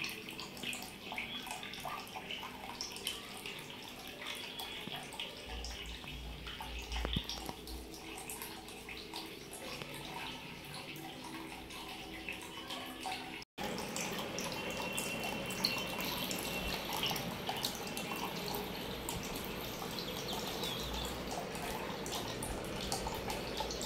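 Water trickling, splashing and dripping steadily in a small home aquarium, from thin waterfall streams pouring into the tank and air bubbles rising. The sound cuts out for an instant about halfway through.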